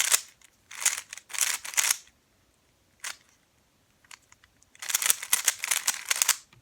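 Plastic Rubik's Cube being turned fast by hand: bursts of rapid clacking layer turns, with a lone click and short pauses between bursts.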